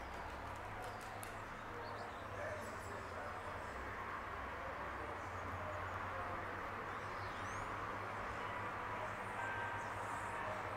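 Outdoor ambience of a steady low rumble with birds chirping now and then, a few quick chirps about seven seconds in.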